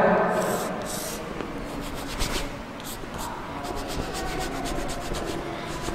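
Chalk writing on a blackboard, heard as a run of short separate strokes as a fraction is written out.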